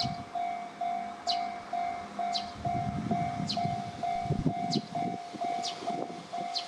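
Japanese level-crossing warning bell ringing: an electronic tone pulsing about twice a second, with a higher falling chime struck about once a second over it. From about three seconds in, a low rumble of a train passing over the crossing joins it.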